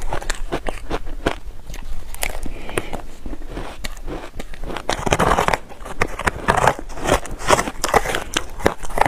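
Close-miked crunching of powdered shaved ice coated in purple sweet potato powder, bitten and chewed mouthful after mouthful as a dense, irregular crackle, louder about five and seven seconds in.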